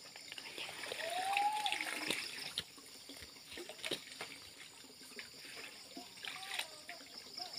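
Muddy water sloshing and splashing as a man wades waist-deep and jabs a stick into the water, with a few sharp splashes.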